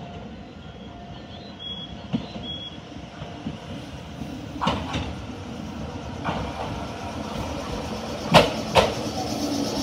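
Meitetsu electric commuter train pulling in along the platform, growing louder as it nears. Sharp clacks from the wheels come from about halfway through, with the loudest pair near the end.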